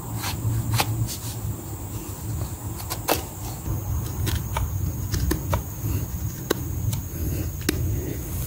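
Duku chandong parang blade carving a wooden stick: about a dozen sharp, short cutting strokes at an irregular pace, over a steady low rumble.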